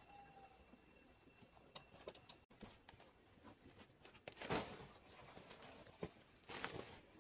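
A sack being handled and tipped, with soil pouring out of it onto a raised garden bed, heard as two short rustling, pouring bursts about two seconds apart, the first louder, with faint light knocks between.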